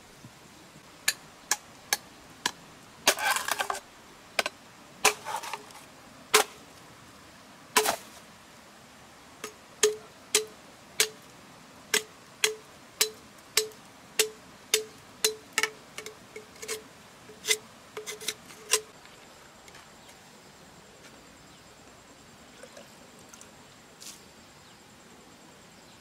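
A series of sharp knocks, irregular at first with a couple of longer scraping sounds, then settling into a steady run of about two strikes a second with a short ring after each. The knocks stop about three quarters of the way through.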